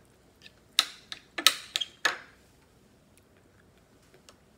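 Metal spoon clinking and scraping against a ceramic plate and bowl while scooping food: a quick run of about half a dozen sharp clinks, between about one and two seconds in.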